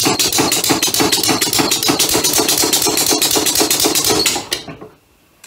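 Homemade two-cylinder compressed-air motor running on shop air with rapid, even puffing and clattering, then slowing and stopping about four and a half seconds in. It runs with a resistance when both cylinders are fed, which the owner took for a timing problem; the fault turned out to be a leather washer blocking one cylinder's intake hole.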